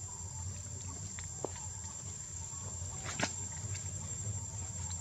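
Insects droning steadily at a high pitch over a low hum, with a few faint clicks, one a little louder about three seconds in.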